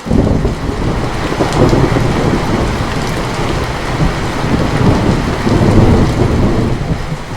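Thunder rumbling over steady rain: the thunder breaks in suddenly and rolls on loudly, easing a little near the end.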